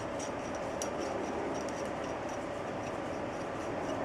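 A cloth rubbing over the oiled slide and barrel of a Glock 22 pistol to wipe off excess oil, a steady scuffing with faint light ticks several times a second.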